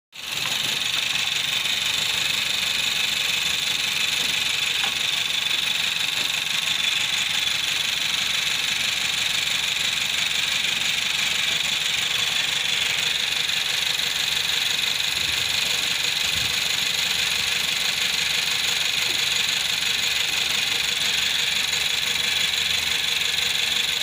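2017 Nissan X-Trail engine idling roughly at about 720 rpm, heard steadily with the hood open. The rough idle is the misfire-like running complaint behind a P0335 crankshaft position sensor code.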